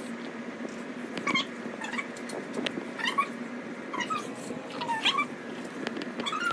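A cat meowing over and over, about six short rising-and-falling calls roughly a second apart.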